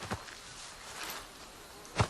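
Insects buzzing, heard as a steady high hiss, with a short knock just after the start.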